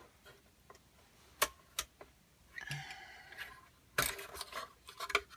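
Scattered clicks and knocks from the Typecast typewriter's parts being handled as its transit protection pieces are removed, the loudest knock about four seconds in followed by a few quicker clicks.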